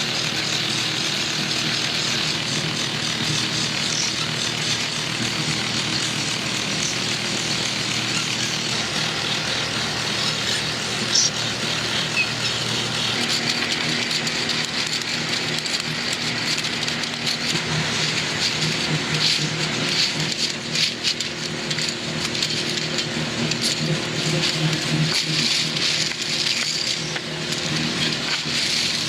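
Factory machinery running steadily, a low hum under a dense clattering hiss, with sharper clicks and knocks coming more often in the second half.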